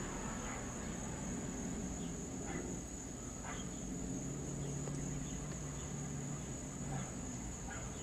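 Faint, steady, high-pitched insect chorus, with a low hum underneath and a few light ticks.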